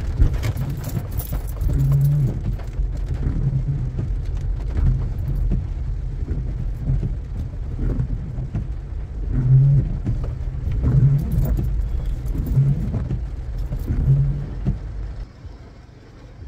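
Car cabin noise while driving: a steady low engine and road rumble with a few louder swells, which drops to a much quieter hum about fifteen seconds in.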